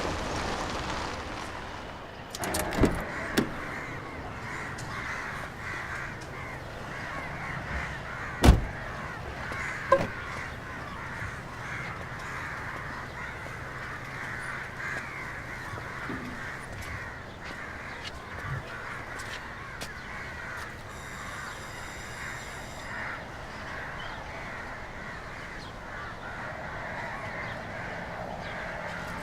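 Crows cawing over a steady outdoor background, with a few sharp knocks, the loudest about eight and a half seconds in.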